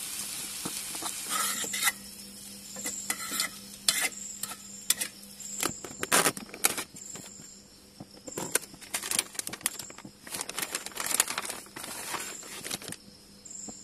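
Packaging rustling and crinkling in irregular bursts as a pack of half-cooked chapatis is handled and opened. For the first two seconds onions sizzle in the pan on the camping stove, and a cricket chirps in short regular pulses throughout.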